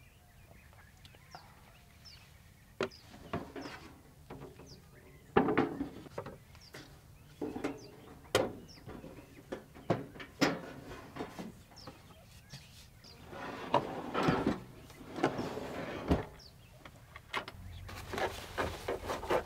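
Camp gear being handled and packed: a scatter of knocks, clicks and rustles, with small birds chirping faintly in the background.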